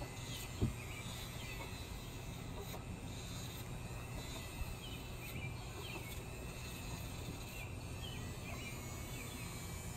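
Small corded rotary grinding tool running at a low speed setting, a steady quiet hum, as it files down a hen's overgrown crossed (scissor) beak. A single click about half a second in.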